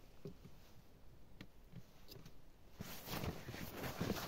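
A few faint clicks, then from about two-thirds of the way in a padded winter suit rustling and snow crunching as a person shifts and gets up from a seat on snow.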